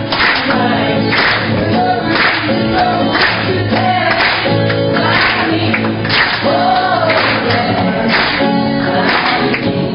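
A song sung by a group of voices with guitar accompaniment, and hands clapping along in time about once a second.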